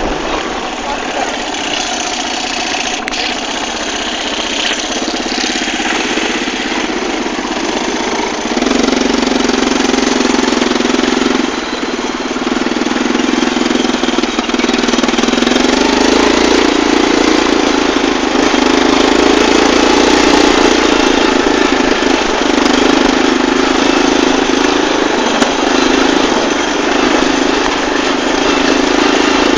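Linhai ATV engine running while riding over rough ground. It gets louder and stronger about a third of the way in as the throttle opens, eases off briefly soon after, then holds the higher note.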